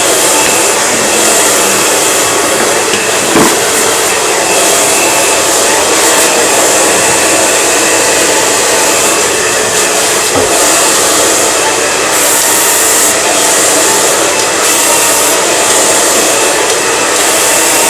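Handheld hair dryer running steadily, blowing air during a blow-dry, with a brief knock about three seconds in.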